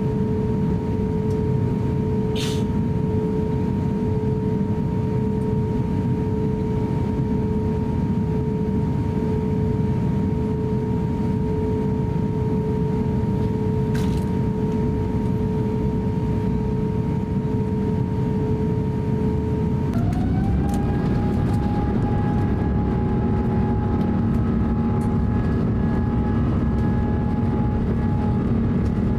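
Airbus A350-900's Rolls-Royce Trent XWB engines heard inside the cabin: a steady rumble with a held hum. About two-thirds of the way through, the engine tones shift and glide to new pitches and the noise grows slightly louder as the engines spool up for takeoff. There are a couple of short clicks before that.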